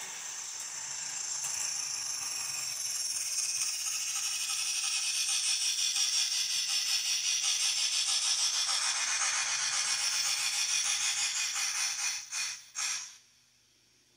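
Steam-locomotive sound from a Mantua 0-6-0 saddle tank switcher's factory DCC sound decoder, played through the model's small speaker: a hissing exhaust chuff that grows louder into a fast, even beat. Near the end come two last bursts of hiss, then the sound cuts off suddenly.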